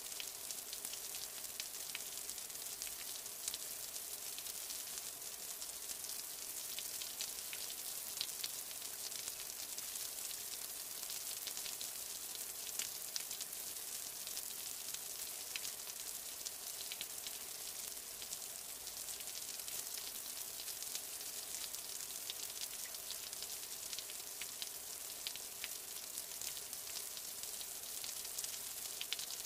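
Steady rain falling: an even, dense hiss scattered with many small drop ticks.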